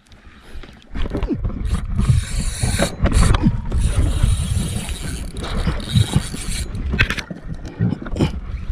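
Wind buffeting the microphone with water rushing and slapping against a small outrigger boat, loud and gusty, starting about a second in.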